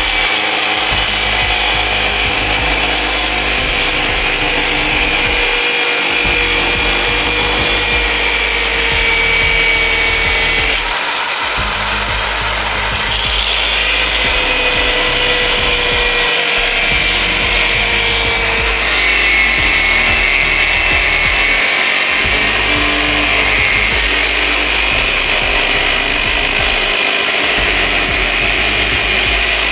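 Corded electric drill spinning a small cutting disc that grinds through a dry coconut shell: a steady motor whine over a gritty cutting sound, the pitch shifting a little as the disc bites.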